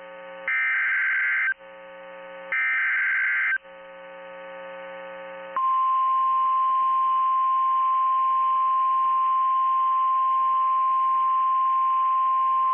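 NOAA Weather Radio Emergency Alert System alert: two one-second bursts of SAME digital header data, then, about five and a half seconds in, the steady single-pitch 1050 Hz warning alarm tone starts and holds.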